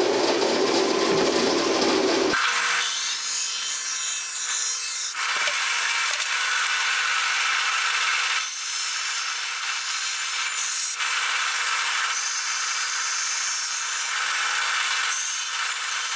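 A bandsaw running, its blade cutting through a thin piece of wood. A deeper motor hum in the first couple of seconds gives way to a steady cutting hiss that swells and eases several times as the piece is worked through the blade.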